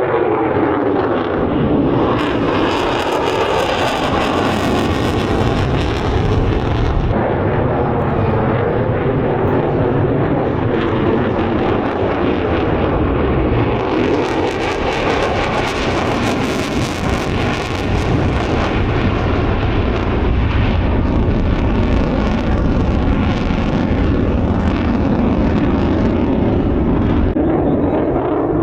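Military jet aircraft flying past, a loud, continuous rush of jet engine noise whose tone sweeps down near the start and back up near the end as the aircraft moves.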